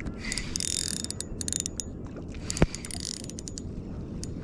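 Fishing reel clicking in repeated runs as a hooked fish is played in on the line, with one sharp knock a little past halfway.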